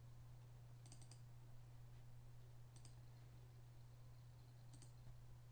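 Faint computer mouse clicks: a quick double click about a second in, then single clicks near three and five seconds, over a low steady hum.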